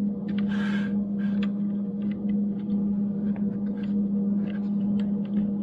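Steady low electrical hum, with light clicks and taps of small parts being handled and a short scrape about half a second in, as the table saw motor's brushes are worked back into their holders.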